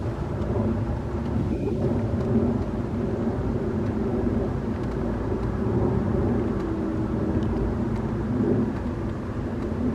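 A Boeing 747-400 four-engine jet airliner passing high overhead, heard as a steady low rumble from its engines.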